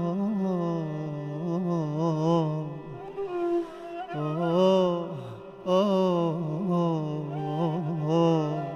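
A singer's voice in long, ornamented melismatic phrases over a steady held instrumental note, from an Iraqi Arabic patriotic song. The voice breaks off briefly about three seconds in and again about five and a half seconds in.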